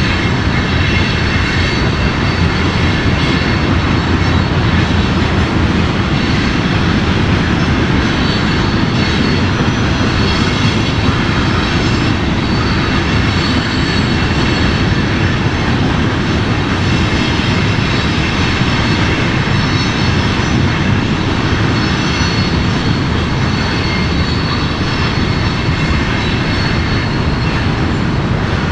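Multirotor drone's propellers and motors running steadily: a constant whir with a thin high whine over it.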